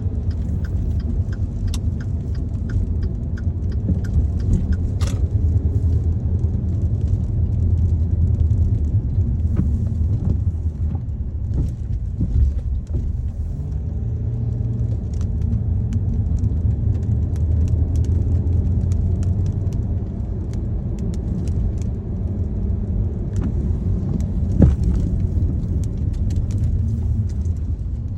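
Road and engine rumble heard from inside a moving car in light rain, with scattered light ticks of raindrops on the car and one sharper tick a few seconds before the end.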